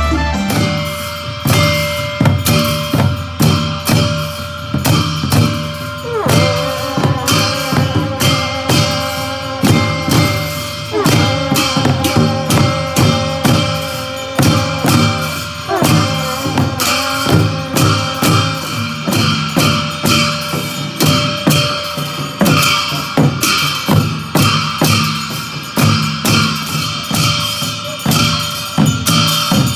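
Festival band of long brass horns sounding long held notes over drums beating a steady, fast rhythm. Every few seconds a horn note swoops in pitch before settling into a held tone.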